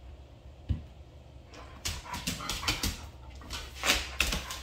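Doberman whining and giving short barks in play with a rooster. There is a single knock about a second in, and a run of brief scuffles and vocal bursts in the second half.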